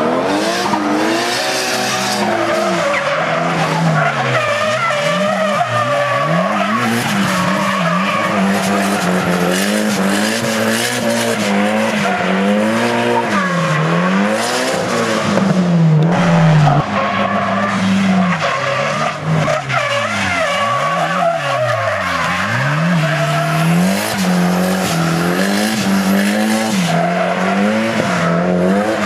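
Nissan S14 Silvia drifting: its engine's pitch rises and falls over and over as the revs swing with the throttle, while the tyres squeal and skid.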